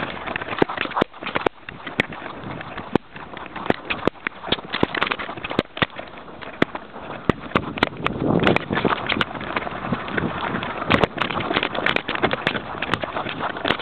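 Rustling, scraping and irregular clicks from a camera worn by a Jack Russell terrier, the camera rubbing and knocking against the dog's fur as it moves about in snow, with a louder stretch of rustling about eight seconds in.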